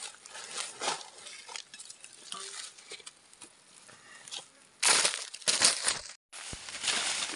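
Dry leaf litter crackling and rustling as hands work on the forest floor, with a run of louder crunching about five seconds in.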